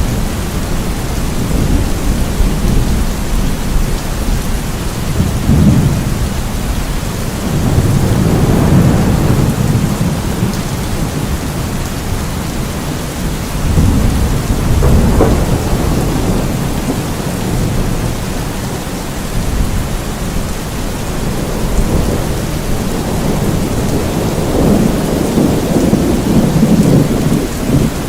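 Steady heavy rain, with low rolls of thunder swelling up several times.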